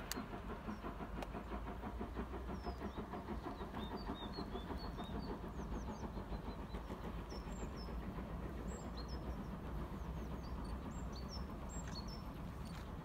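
Distant steam locomotive working toward the listener, its rapid exhaust beats blending into a steady low rumble, with small birds chirping.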